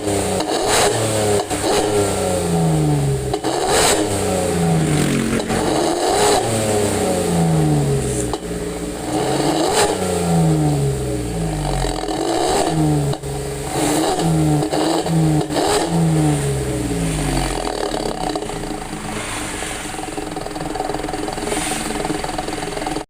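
Datsun Go's 1.2-litre three-cylinder engine revved in repeated short throttle blips through an aftermarket Suos 'ngorok' growl exhaust, the pitch dropping back after each blip. It settles to a steadier note in the last few seconds.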